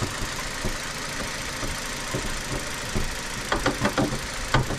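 Kia Ceed's 1.4-litre 16-valve DOHC petrol engine idling quietly under the open bonnet, with a few light clicks and knocks near the end as the hood prop rod is handled.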